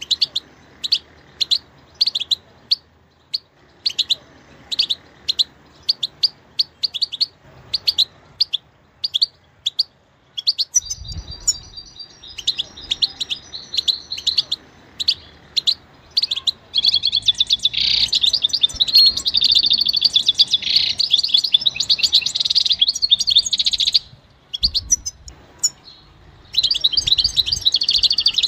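European goldfinch singing. It starts with short, separate chirps about two a second, then breaks into fast, continuous twittering song that runs for several seconds, pauses briefly, and starts again near the end.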